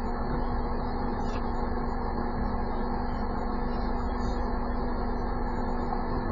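Steady car engine and cabin noise picked up by a dashcam microphone inside a stopped car, with a constant low hum.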